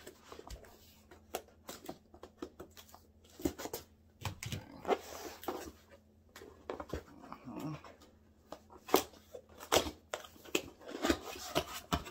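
A cardboard laptop box being handled and opened by hand: a string of irregular knocks, taps and scrapes with rustling in between.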